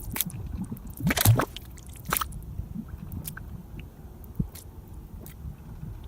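Wet squelching and gurgling over a low rumble, with irregular sharp pops and clicks.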